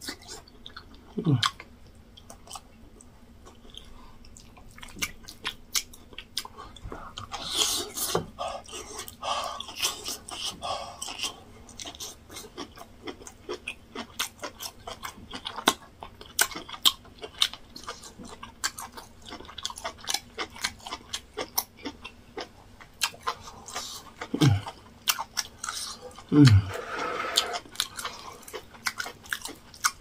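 Close-up mouth sounds of a man eating yam fufu with egusi soup by hand: wet chewing with frequent sharp lip smacks. There are three short falling hums of relish, one about a second in and two close together near the end.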